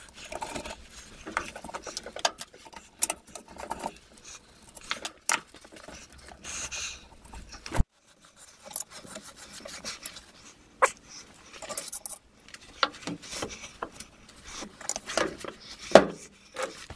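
Nitrile-gloved hands rubbing and rustling over a Meteor wood lathe headstock, with irregular small metal clicks and knocks as the stepped pulley and spindle are handled and felt over for a hidden grub screw.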